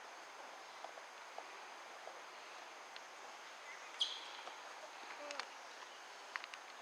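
Quiet outdoor ambience with scattered small clicks, one short high chirp falling in pitch about four seconds in, and a brief low call a second later.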